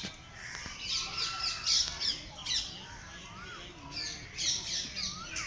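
Birds calling: clusters of short, quickly repeated downward calls, loudest about one to two seconds in and again about four seconds in.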